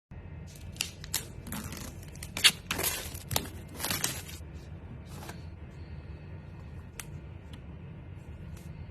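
Packaging being handled while a phone box is unboxed: a quick run of rustles, scrapes and tearing in the first half, then two light clicks near the end, over a low steady hum.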